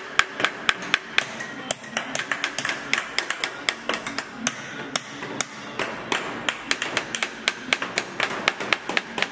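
Hammer blows on a steel chasing tool held against a copper sheet: a quick, uneven run of ringing metallic taps, several a second, as the outline of the design is chased into the copper.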